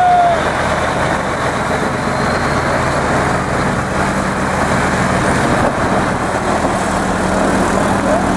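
Heavy multi-axle tipper truck's diesel engine running as it pulls out and drives past, a steady low drone under heavy road noise. A short high squeal sounds at the very start.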